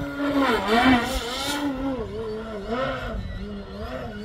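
Motor and propeller of an AJ Aircraft 61-inch Slick RC aerobatic plane droning in flight, its pitch rising and falling as the throttle changes through the manoeuvres, with a louder, higher burst about a second in.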